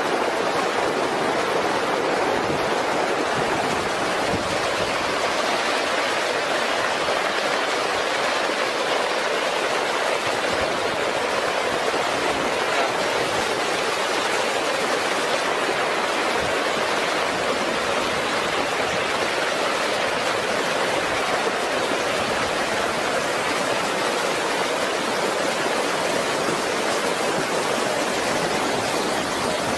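Muddy flash-flood debris flow rushing across a road: a steady, loud rush of moving water and mud.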